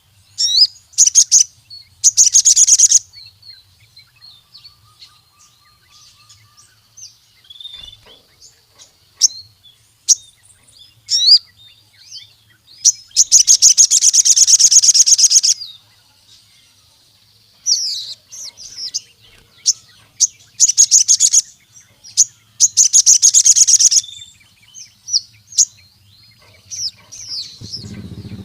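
A sogon sunbird singing vigorously: sharp high-pitched chirps and short notes broken by fast buzzy trills, each trill about two seconds long, the longest in the middle. A faint low hum runs underneath, and a low rumble comes in right at the end.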